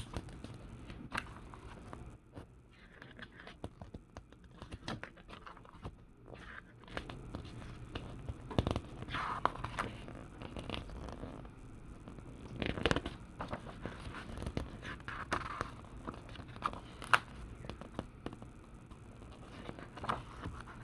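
Glossy paper catalogue pages being handled and turned, with scattered scrapes, rustles and small clicks.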